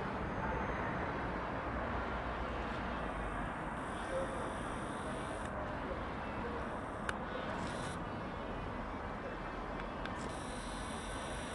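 Steady outdoor background noise, an even low rush with no distinct events, and a faint tick about seven seconds in.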